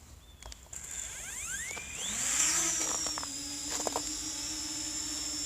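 Parrot Anafi quadcopter's electric motors and propellers spinning up for takeoff: a whine rises in pitch from about a second in, then settles into a steady whine, with a couple of light clicks along the way.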